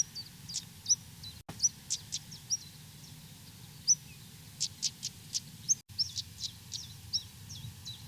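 Stonechats calling: short upward whistles mixed with sharp clicking tsak notes, repeated several times a second.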